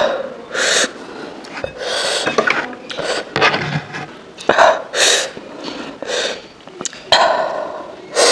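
Close-miked eating sounds: wet chewing and slurping of momo in a spicy soup with shredded carrot, in a run of short noisy mouthfuls and breaths, with a few sharp spoon clicks.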